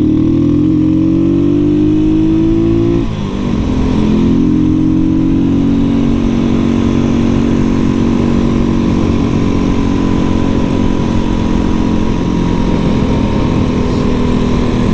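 Janus Halcyon 450's single-cylinder engine pulling hard, climbing in revs for about three seconds. It drops sharply in pitch at an upshift, then climbs again and settles into a steady cruise.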